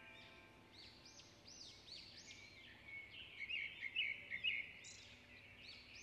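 Small birds chirping: a string of quick, high chirps, busiest and loudest from about the middle to two-thirds of the way through.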